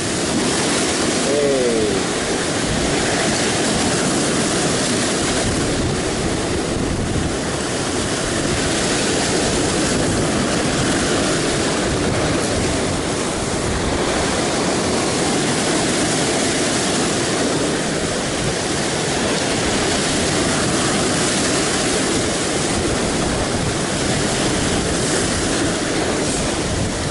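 Heavy surf breaking and foaming against rocks, a loud, steady rush of rough sea.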